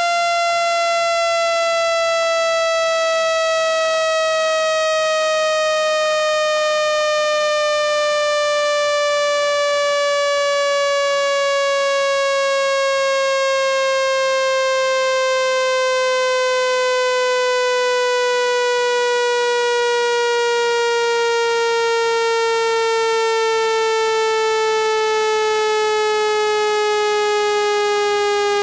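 Water-eject tone: a single buzzy electronic tone that slides slowly and steadily down in pitch at a constant loudness. It is meant to be played at full volume through a phone speaker so that the vibration pushes trapped water out.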